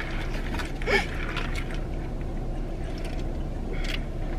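A paper fountain-drink cup being handled and a straw pushed through its plastic lid, with a short squeak about a second in and light rustling and clicks, over the steady low hum of a car interior.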